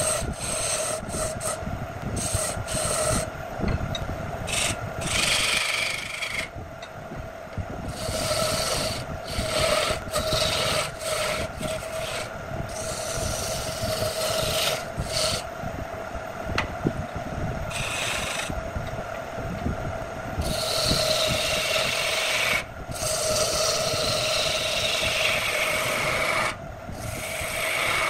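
Electric wood lathe running with a steady hum while a hand-held turning tool cuts the spinning wood: repeated rasping, hissing passes of wood shavings peeling off, some short and some lasting several seconds, starting and stopping as the tool is pressed in and lifted.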